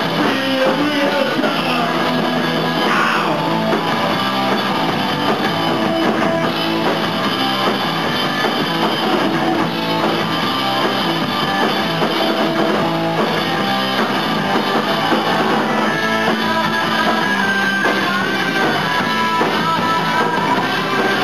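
Rock band playing live: electric guitar over a drum kit, steady and loud.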